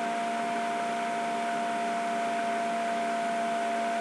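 Steady background hum and hiss with a few fixed tones, holding at one level with no other sounds.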